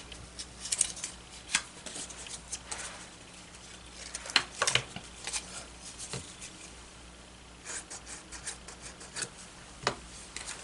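Cardstock paper pieces being handled and set down on a cutting mat: faint, scattered light taps, clicks and rustles at irregular moments.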